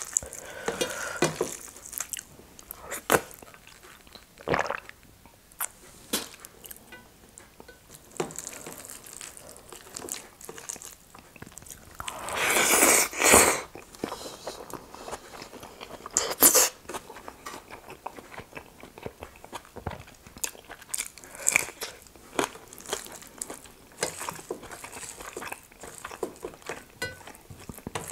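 Close-miked eating: rice and nettle dal mixed by hand on a steel plate and chewed with the mouth, many small wet clicks and smacks. A louder breathy sound with pursed lips comes about halfway through.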